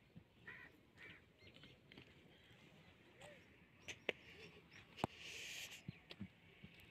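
Near silence in the open, with faint distant bird calls, a few soft clicks and a brief hiss about five seconds in.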